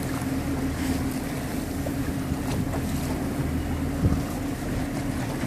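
A boat engine running steadily, under wind buffeting the microphone and the hiss of choppy water, with a dull thump about four seconds in.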